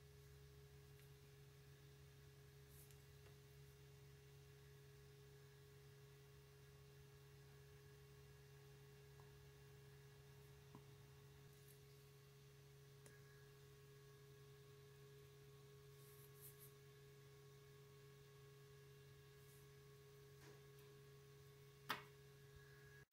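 Near silence: room tone with a steady low hum and a few faint ticks, and one sharper light click near the end.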